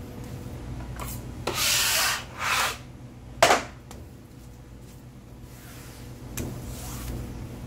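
Cotton-gloved hand rubbing and sweeping across a plastic cutting board: two loud scraping strokes about a second and a half in, a short sharp one soon after, then a few fainter strokes near the end.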